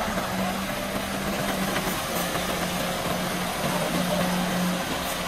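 Sinotruk concrete mixer truck's diesel engine running steadily, turning the drum as it discharges concrete down the chute, with a steady low hum under a wash of noise.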